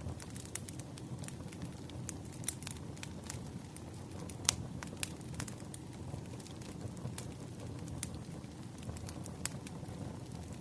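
Wood fire crackling: irregular pops and snaps over a low steady rumble, with one sharper pop about four and a half seconds in.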